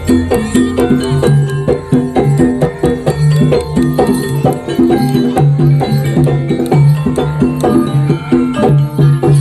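Jaranan (kuda kepang) ensemble music: struck pitched percussion and drums playing a fast, steady, repeating pattern over sustained low notes.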